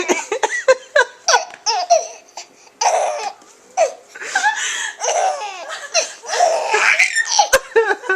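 A baby laughing in a long string of short, high-pitched laughs with brief pauses between them. There is a sharp click about three-quarters of a second before the end.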